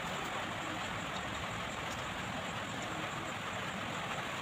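Steady, even hissing noise with no distinct events.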